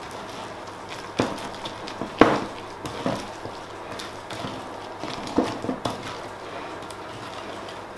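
Spoon knocking and scraping against a glass mixing bowl while thick cake batter is folded: a few irregular knocks, the loudest about two seconds in.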